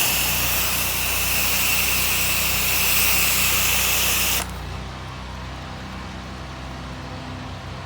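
Pressure washer spraying water in a loud hiss for about four and a half seconds, then cutting off suddenly, over the steady hum of the pressure washer's motor, which keeps running.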